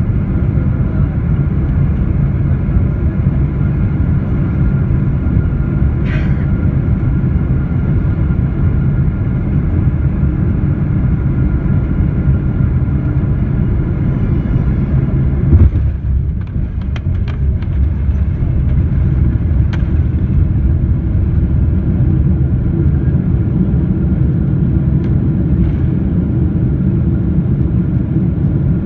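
Steady low rumble of a jet airliner heard from inside the cabin on landing. About halfway through comes a sudden loud thump as the wheels touch down, followed by a few sharp clicks and rattles, then the steady rumble of the roll-out on the runway.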